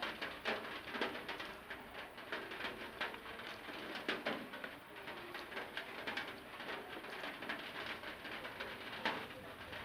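Close-up eating sounds: chewing rice and curry, with irregular wet mouth clicks and smacks.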